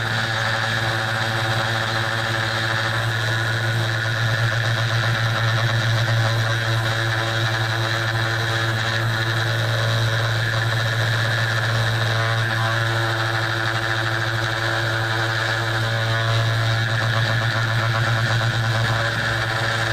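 A CNC 2417 engraver's 775 DC spindle motor running steadily at about 6000 rpm while a carbide ball-nose end mill engraves anodized aluminium. It makes a constant low hum with steady higher tones above it.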